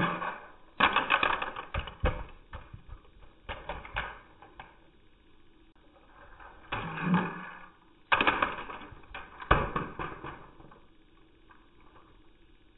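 LEGO bricks and plastic car parts clattering and ticking against each other in several separate bursts, slowed down along with the slow-motion footage. The loudest bursts come about a second in and again from about eight to ten seconds in.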